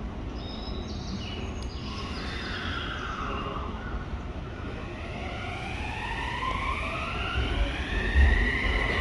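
Electric train's inverter-driven traction motors whining as it pulls away: a falling whine, then several tones together that climb steadily in pitch and grow louder as it picks up speed. The train is a renewed Odakyu 3000 series set, whose motor sound is like that of the new 5000 series.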